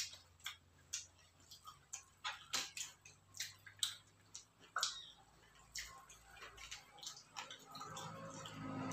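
Quiet eating sounds of a person chewing roast chicken and pulling it apart by hand over aluminium foil: a scatter of soft clicks and wet mouth smacks. Near the end a rising rush of an approaching vehicle starts to build.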